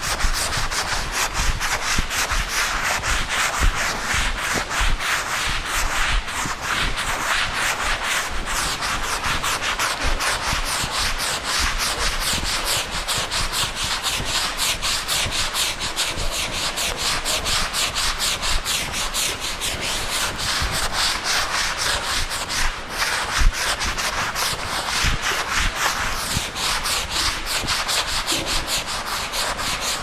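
Blackboard eraser wiping chalk off a chalkboard in rapid back-and-forth strokes, a steady dry scrubbing, with one louder knock about two-thirds of the way through.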